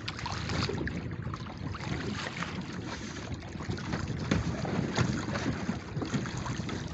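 Wind buffeting the microphone over choppy open water, with small irregular splashes of wavelets against the boat.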